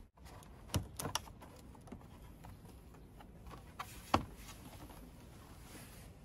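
Plastic back cover of an LED TV being fitted back on, giving scattered sharp clicks and taps, the loudest about a second in and around four seconds in.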